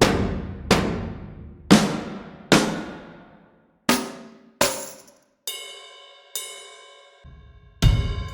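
Sampled percussion from the Percussion Elements 3 Kontakt library, struck one hit at a time. Four deep drum hits each fade out slowly, then come two shorter, sharper hits and two ringing metallic strikes with a sustained tone. Near the end a quick run of drum hits begins.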